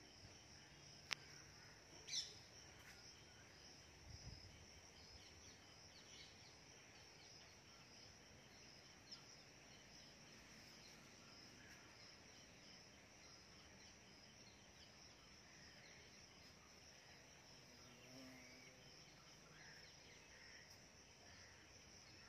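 Faint outdoor ambience: a steady high-pitched insect chirring, with a sharp click about a second in and a brief falling chirp about two seconds in.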